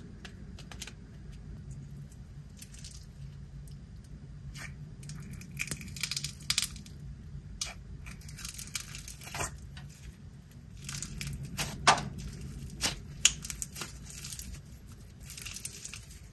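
Clear glue slime with foam beads being handled and stretched by hand: a run of small sticky clicks, crackles and pops, with denser crackling bursts about a third of the way in and again past the middle.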